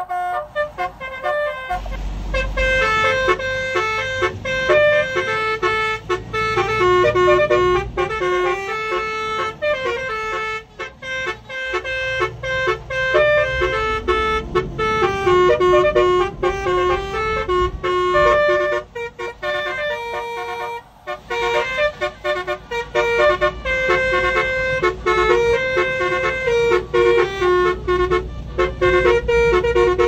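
Basuri multi-tone musical car horns (telolet horns) playing a tune of held notes that step from pitch to pitch, over low road rumble from a car driving on a wet highway.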